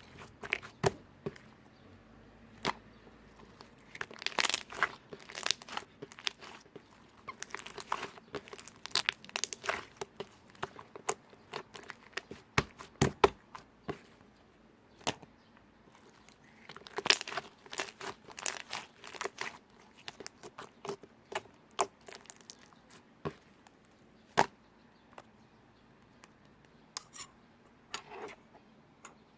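Slime being squished and stretched by hand, giving irregular sticky clicks and crackles that come in clusters with short pauses between.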